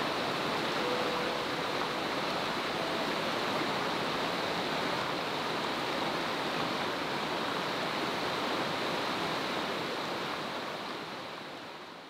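Mountain stream water running over a shallow riffle: a steady rushing that fades out near the end.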